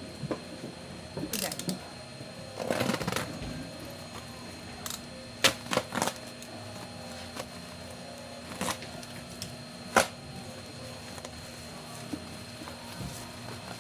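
Unboxing handling noises: short rustles of packaging and scattered sharp clicks and taps as items are taken out and handled, over a steady low hum.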